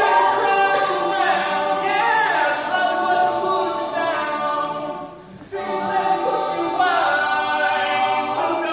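Male a cappella group singing chords together, several voices at once, with no instruments; the singing drops away briefly about five seconds in, then comes back.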